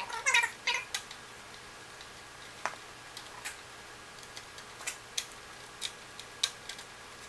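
Light, irregular clicks and ticks of wiring-harness plugs being pressed onto the circuit-board connectors of a Miller Aerowave welder: a quick cluster in the first second, then single clicks every second or so, over a faint steady hum.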